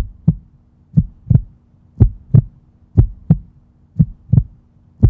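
Heartbeat sound effect: low lub-dub double thumps, one pair about every second, steady like a resting pulse.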